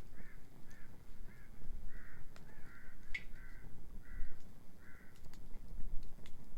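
A bird calling in a quick run of about nine short calls, roughly two a second, stopping about five seconds in. A low steady rumble and a few sharp crackles of the wood fire sit underneath.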